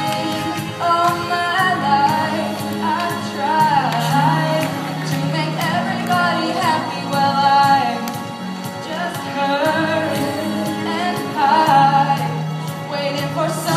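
Song with a singing voice over instrumental accompaniment and a steady bass line.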